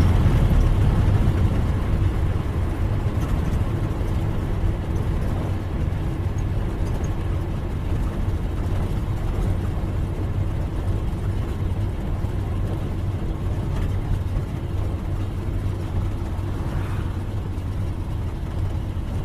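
Old car's engine running steadily with a low hum, easing a little in loudness over the first couple of seconds and then holding even.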